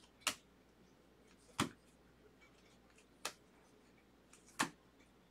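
A stack of Bowman baseball cards being flipped through by hand: four sharp snaps, roughly one every second and a half, as cards are pulled from the stack.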